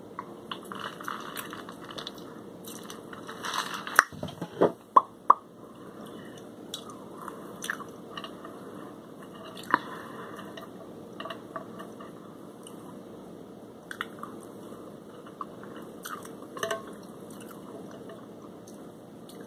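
Someone eating shrimp and French fries by hand: chewing and crunching with small clicks, after sips from a mug in the first few seconds. A few sharp, loud knocks come about four to five seconds in.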